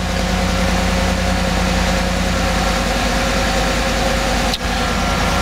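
A 2016 Chevrolet Silverado 1500's 5.3-litre V8 idles steadily at a raised idle of about 1,200 rpm soon after starting, with the coolant still cool at about 104 °F.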